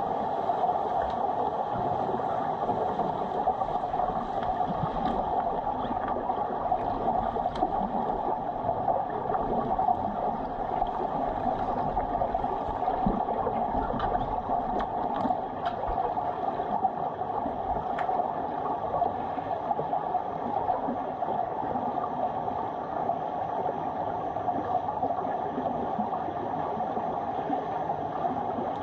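Underwater sound of a swimming pool picked up by a submerged camera: a steady muffled rushing, with a few faint sharp clicks and knocks from swimmers in fins moving and grappling in the water.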